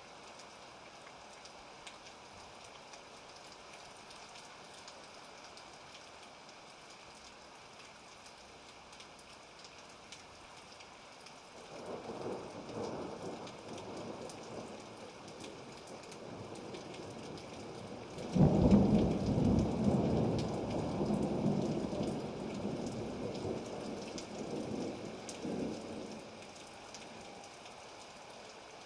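Thunderstorm: steady rain, with a rumble of thunder about twelve seconds in, then a sudden, louder thunderclap about eighteen seconds in that rolls on for several seconds and fades.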